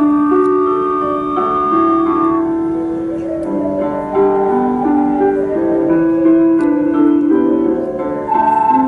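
An ocarina ensemble playing a slow melody in harmony, several parts holding notes together and changing every second or so.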